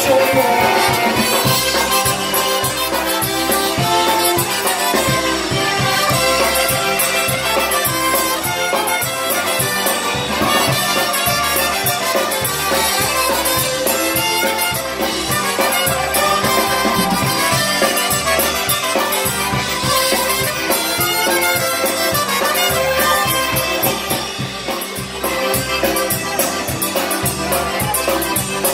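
Live polka band playing an instrumental passage: concertina and piano accordion carrying the melody with saxophone and trumpet, over electric bass and drum kit keeping a steady two-beat polka rhythm.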